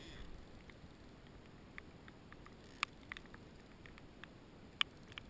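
Faint, scattered short clicks and taps, about a dozen at uneven intervals, with a sharper one near the end, over a faint steady hiss.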